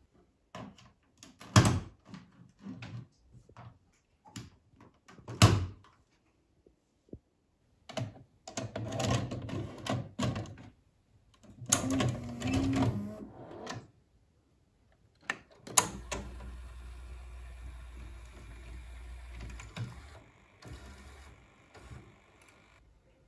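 A 1987 NEC N9034T VHS video recorder taking a cassette: plastic clicks and thumps, then the cassette sliding into the front slot and the loading mechanism whirring and clunking as it pulls the tape in. After a sharp click, the machine runs with a steady low mechanical hum as it plays the tape.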